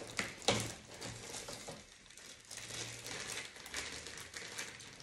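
Packaging crinkling and rustling as items are handled during unboxing, with a few light knocks in the first second.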